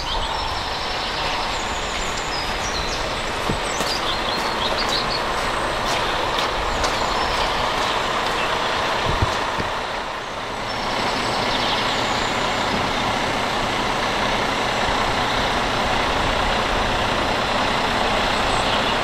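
Heavy-haulage lorry's diesel engine running steadily, with a brief dip in level about halfway through.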